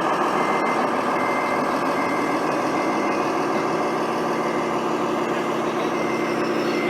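Scale RC construction truck running with a diesel-engine sound and a reversing beeper beeping about once a second. The engine note drops to a steadier, lower tone about halfway through.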